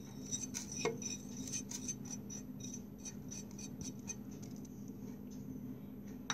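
Faint, irregular light clicks and taps, several a second, over a steady low hum.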